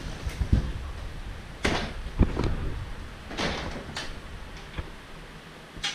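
Door being handled in a small tiled room: a few knocks and thumps and two short rushing noises, with a sharp click near the end, as a Siberian husky moves about close by.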